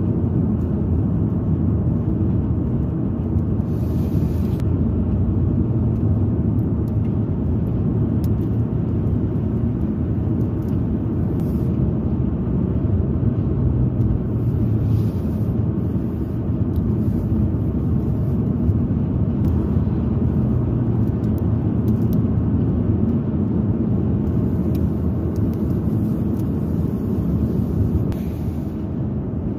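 Steady low road and engine rumble inside a car's cabin at motorway speed, with a few brief faint hisses.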